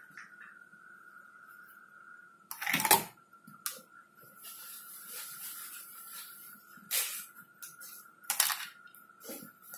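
Clinks and knocks of cups and containers being handled, the loudest a sharp knock about two and a half seconds in, over a steady faint high whine.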